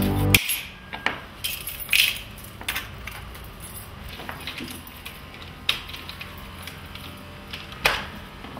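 A key clicking and clinking in a metal door lock as it is worked and turned, a few sharp metallic clicks spaced irregularly over several seconds.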